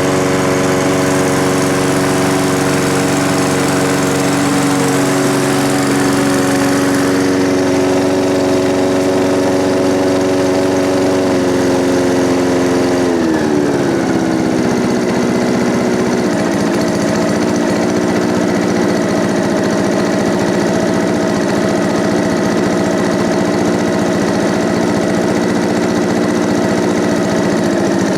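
Challenge Xtreme lawnmower's 3.5 horsepower four-stroke engine running steadily at full throttle, then slowing to a lower, steady speed about halfway through.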